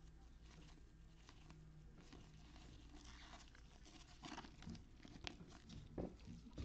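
Faint rustling and soft ticks of 2020 Panini Absolute football cards being flipped through one by one in gloved hands, a little busier in the second half.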